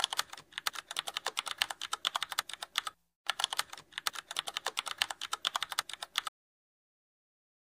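Keyboard-typing sound effect: a rapid run of key clicks, several a second, with a brief pause about three seconds in, stopping about six seconds in.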